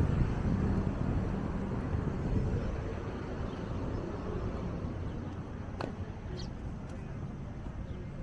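Outdoor town ambience: a steady low rumble, easing slightly after the start, with a couple of faint short high sounds about six seconds in.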